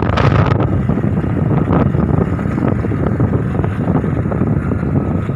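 Wind buffeting the microphone of a phone riding on a moving two-wheeler, over the steady low rumble of its engine and tyres on the road.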